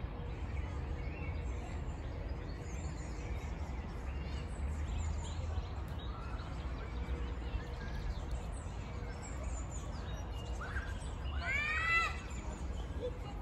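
Park ambience: small songbirds chirping on and off over a steady low rumble. A short, high-pitched voice call rises and falls near the end.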